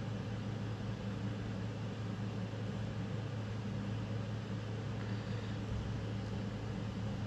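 Steady low machine hum with a constant hiss underneath, unchanging throughout.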